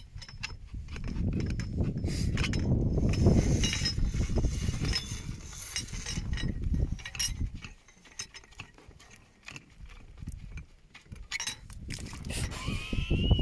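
Metal rod of a lightweight piston corer knocking and clinking as it is worked down through a wooden coring platform, over a low rumble through the first half. A brief squeaky glide near the end.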